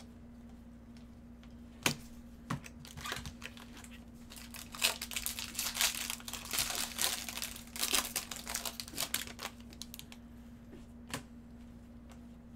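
Foil wrapper of a Bowman baseball card pack being torn open and crinkled by gloved hands, with a sharp click about two seconds in and another near the end as the cards are handled.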